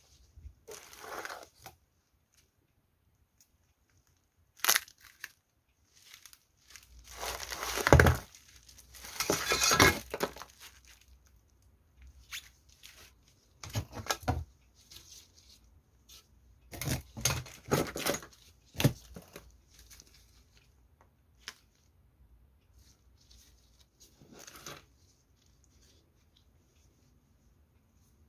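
Parcel packaging being opened by hand: irregular bursts of tearing and crinkling with quiet gaps between, the longest and loudest tearing about a third of the way in.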